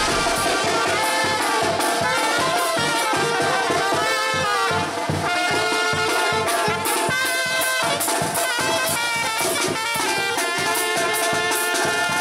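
Mexican brass banda playing: trumpets carrying the melody over a steady beat from the tambora bass drum and cymbal.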